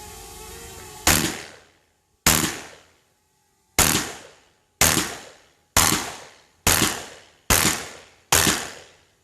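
Eight shots from an Armed Lethal semi-automatic 12-gauge shotgun, fired at about one a second, each with a short ringing tail. A steady hum with a few tones runs before the first shot and stops about a second in.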